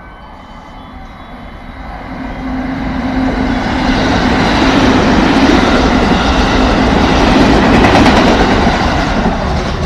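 A JR West 281 series Haruka limited express electric train passing through the station at speed without stopping. Wheel and motor noise swells over the first few seconds, stays loud with a steady hum through the middle, and starts to ease near the end.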